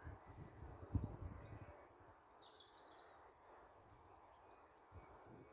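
Faint outdoor ambience with a few distant bird chirps. Low thumps on the microphone in the first second or two, the loudest about a second in.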